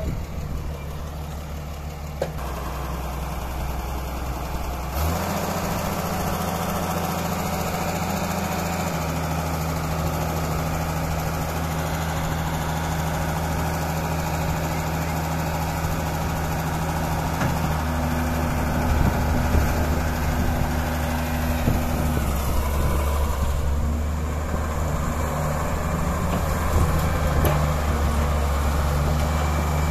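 Diesel engine of a Kobelco Yutani YS-750-2 tracked excavator running steadily. It speeds up about five seconds in, and its pitch shifts a few more times as the machine works.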